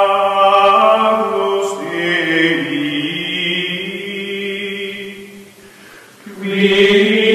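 Choral music of long, held voices chanting. It fades about six seconds in and swells again just after.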